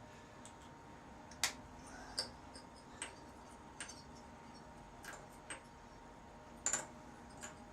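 Light clicks and taps of metal tools being handled at the rototiller engine while its ignition spark is checked, spaced irregularly, with a small double tap near the end.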